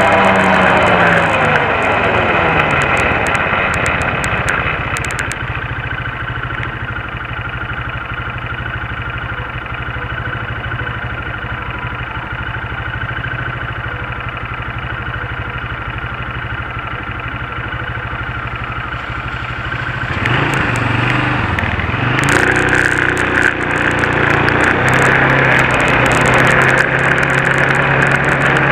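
Quad (ATV) engine slowing down to a steady idle, then revving up and pulling away about 20 seconds in, running steadily with more hiss once under way.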